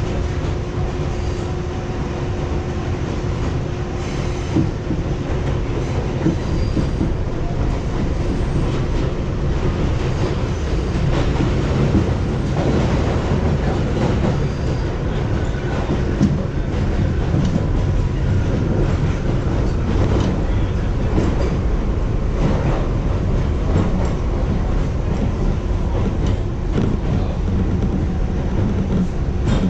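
An R62A subway train running along the track, heard from inside the front car: a steady rumble of wheels on rail with scattered clicks, and a steady hum in the first few seconds that fades.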